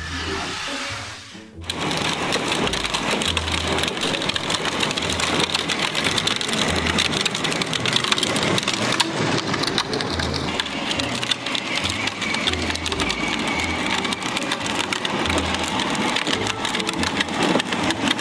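Music with a fast, busy beat and pulsing bass, starting in full after a short dip about two seconds in.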